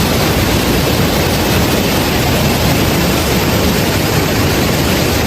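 Waterfall and rushing stream water: a loud, steady, even rush of water.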